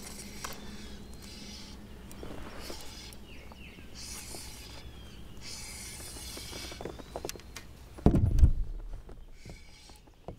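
Fishing reel cranked in short spells and water splashing as a hooked smallmouth bass is fought on the line, with a loud low thump about eight seconds in.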